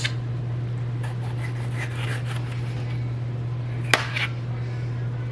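A knife slicing tomatoes on a cutting board, with soft scraping sounds and one sharp knock of the blade on the board about four seconds in, over a steady low hum.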